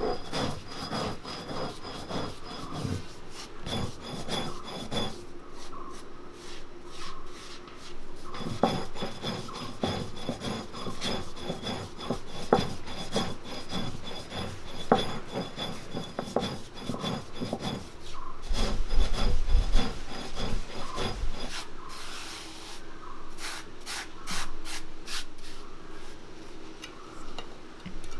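Repeated rough rubbing and scraping strokes of hand food preparation, uneven in rhythm, with heavier handling about two-thirds of the way through.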